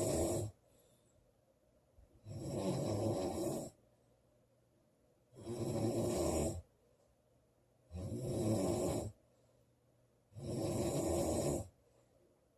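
A woman snoring loudly, one snore about every two and a half seconds, each lasting a little over a second, with quiet breaths between.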